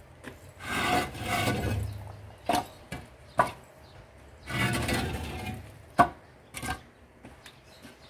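Concrete hollow blocks scraping as they are slid across a truck bed, and knocking against one another as they are unloaded and stacked by hand: two longer scrapes, each followed by a couple of sharp knocks.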